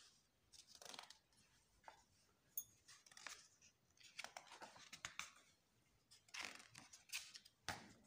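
Sketchbook paper pages rustling and swishing as they are turned and smoothed flat by hand: a series of short, faint rustles.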